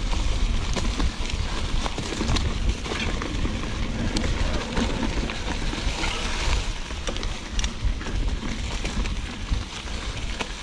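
Mountain bike riding over a dirt and rock trail: tyres crackling over the ground, with scattered clicks and rattles from the bike and a steady rumble of wind on the microphone.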